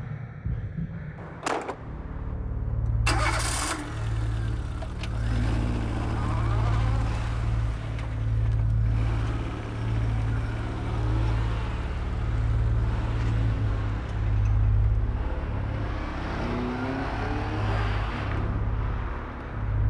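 A car engine is started about three seconds in, just after a short sharp click, and then keeps running as the car pulls away. Its note rises twice as it accelerates.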